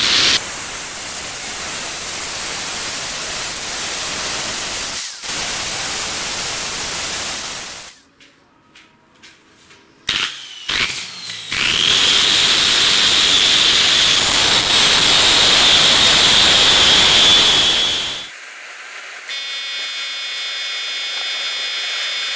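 Angle grinder with an abrasive disc grinding a steel knife blade, running in two long stretches with a pause of about two seconds between them; the second stretch carries a steady high whine. The grinding stops near the end, and a quieter sound made of several steady tones follows.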